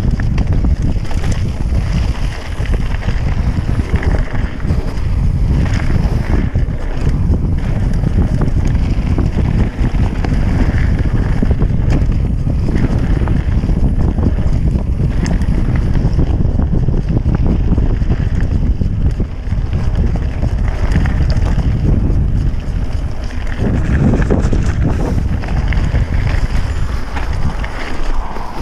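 Wind buffeting the microphone over the continuous rumble and crunch of mountain bike tyres rolling fast on a gravel singletrack, with the rider's breathing picked up close by a mouth-held camera.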